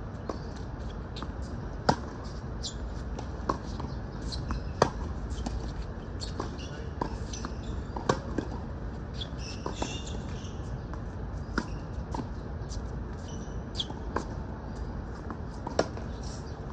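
Tennis rally on a hard court: rackets striking the ball with a sharp pop every second or two, some hits louder and some fainter, with ball bounces between, over steady background noise.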